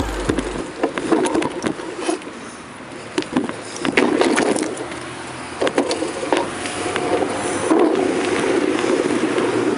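Bicycle rolling along a street: steady tyre and road noise with scattered rattles and knocks from the bike.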